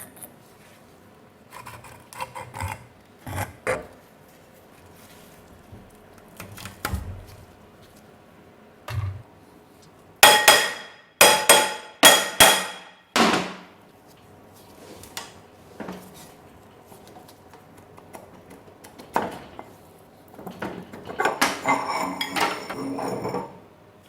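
Hand tools working on metal parts: scattered light knocks, then four loud ringing hammer blows on metal about ten seconds in, and a quick run of rattling metal clinks near the end.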